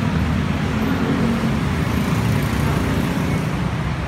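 Steady road traffic rumble with general urban street noise.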